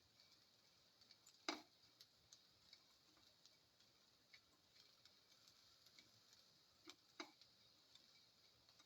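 Faint, irregular clicks and taps of a spatula against a pan while sautéing, with one louder knock about a second and a half in, over a faint steady hiss.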